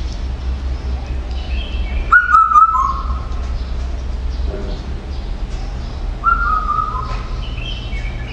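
Two loud whistled calls about four seconds apart, each stepping down in pitch over most of a second, with fainter higher chirps between them, over a steady low hum.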